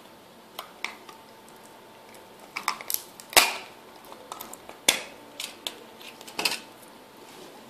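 Small plastic and metal parts and tools being handled on a tabletop while working on a micro RC helicopter's servos: scattered light clicks and taps, with sharper knocks about three and a half and five seconds in.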